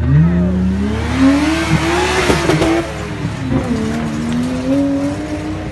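Off-road 4x4 engine revving hard under load, its pitch climbing, dipping about three and a half seconds in, then climbing again, with a broad rushing noise around two seconds in.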